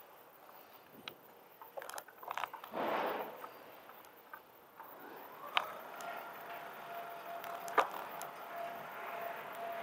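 Bicycle-mounted camera picking up scattered clicks and rattles as the bike rolls over the pavement, with a short rushing swell about three seconds in. From about halfway through, a steady high tone runs underneath.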